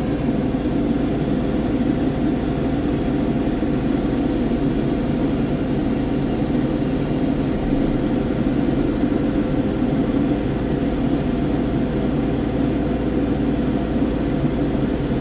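Kubota excavator's diesel engine running steadily, a constant even hum with no change in speed.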